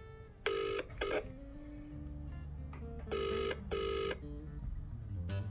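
British telephone ringing tone heard over a phone's speaker while an outgoing call rings unanswered: the double-ring cadence, two short buzzing pulses close together, about a second in and again around three seconds in.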